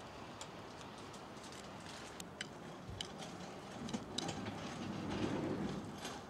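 Crow's beak pecking at a ceramic dish of feed, a string of sharp, irregular clicks. A low rumble swells and fades from about four to six seconds in.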